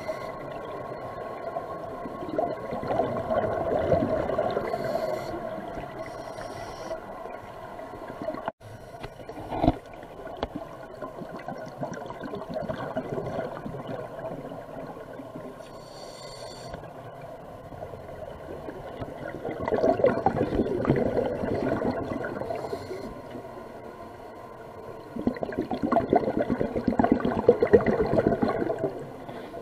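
Underwater sound of a scuba diver breathing through a regulator: exhaled bubbles gurgle and crackle in bursts a few seconds long, three times, over a steady underwater hum. A single sharp knock comes about ten seconds in.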